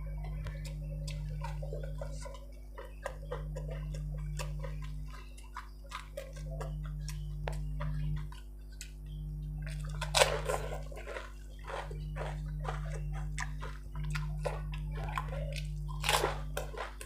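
Golgappa (pani puri) being eaten up close: crisp puri shells dipped and filled in a bowl of spiced water, with splashing, dripping and many small crackles, and the filled shells crunching in the mouth about ten seconds in and again near the end. A steady low hum runs underneath.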